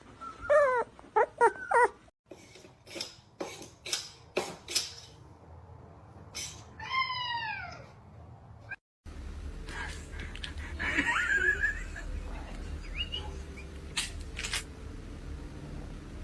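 Domestic cats meowing: a quick run of four short chirping meows, then one longer meow that falls in pitch, and later another meow over a low hum. Several sharp clicks or knocks fall between them.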